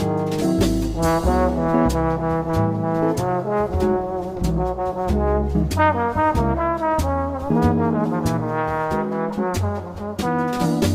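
Instrumental music with a brass lead over a bass line and a steady drum beat.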